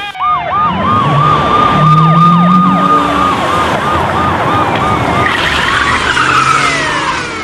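Police sirens on Carabinieri Alfa Romeo 156 patrol cars: a fast yelp repeating about three times a second for the first five seconds, with slower wailing glides over it, and car engines running as the cars drive up.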